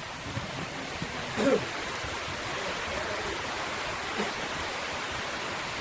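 Steady hissing noise, with a brief voice-like sound about a second and a half in.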